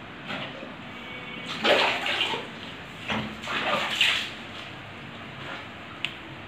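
Water splashing on a wet golden retriever during a bath, in two short spells of splashing and sloshing, with a single sharp click near the end.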